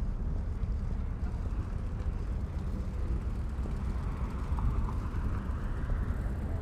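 Wind buffeting the camera's microphone: a continuous, gusting low rumble. A broader rush of noise swells about four seconds in and fades again near the end.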